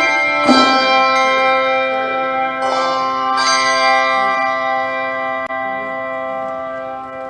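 Handbell choir ringing a full chord struck about half a second in, with two more strikes a little before the middle of the passage. The bells are then left to ring on, slowly dying away.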